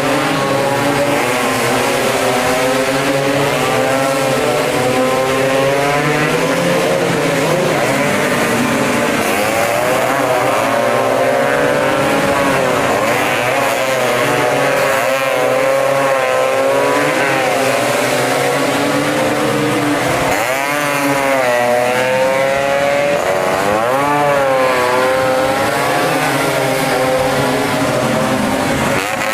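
Several two-stroke racing scooter engines running hard at high revs, their overlapping pitches rising and falling again and again.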